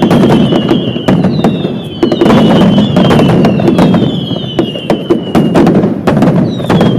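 Aerial fireworks going off in quick succession: dense bangs and crackles over a continuous low rumble, with a falling whistle that repeats about once a second.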